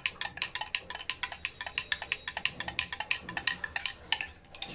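Steel spoon stirring lemon water in a glass tumbler, clinking rapidly against the inside of the glass, about seven or eight clinks a second, slowing and stopping near the end.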